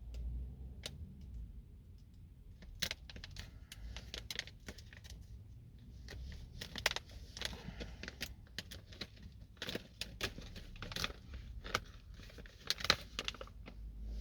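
Plastic packaging being opened and handled by hand: scattered clicks, taps and crinkling, with a few sharper clicks about 3, 7, 10 and 13 seconds in.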